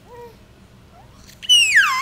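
A baby's vocal sounds: a soft short coo just after the start, then a loud high-pitched squeal near the end that slides down in pitch.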